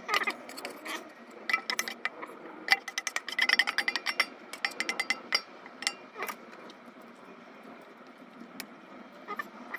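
Metal spoon scraping and clinking against stainless steel bowls while marinated chicken is scooped from one bowl into a steel dish. A quick run of clinks and scrapes dies down after about six seconds.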